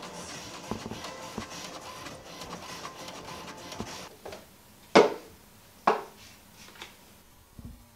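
Home inkjet printer feeding and printing a page, a steady whir with regular light clicks that stops about four seconds in. Then come two sharp clacks about a second apart, the loudest sounds, as the printed page is fixed to the metal fridge door with magnets.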